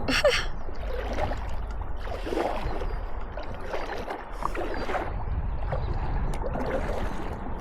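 Kayak paddle strokes in the water, a swish every second or so, over a steady low rumble.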